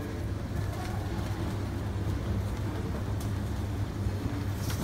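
Steady low hum of indoor background noise, with a few faint clicks.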